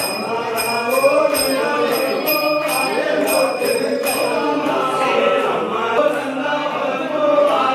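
Men's voices chanting together in a devotional chant, many voices overlapping. Over the chant a small bell is rung rapidly, about two to three strokes a second, stopping a little after halfway.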